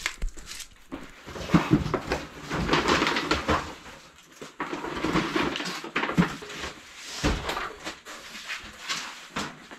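Rustling, scraping and knocking of cardboard boxes and household items being handled and moved, with a few sharper knocks.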